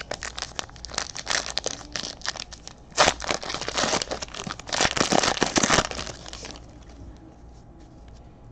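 Trading card pack wrapper crinkling as it is torn open and handled: a run of sharp crackles that stops about six and a half seconds in, loudest about three and five seconds in.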